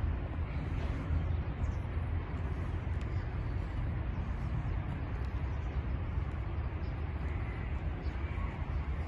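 Steady outdoor ambience of a city landmark, mostly a low, even rumble with a faint haze of distant activity above it.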